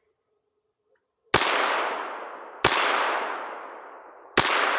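Three shots from a Heritage Rough Rider single-action revolver firing .22 WMR (.22 Winchester Magnum) rounds, about a second and a half apart. Each is a sharp crack followed by a long fading tail. It is loud, louder than a plain .22.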